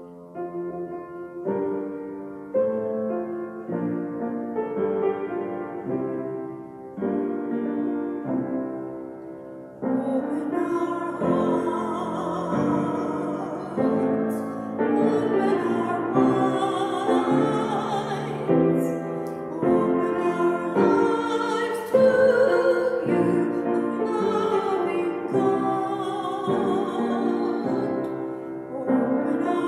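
Piano playing a slow hymn introduction in separate chords. About ten seconds in, a woman starts singing the hymn over the piano accompaniment.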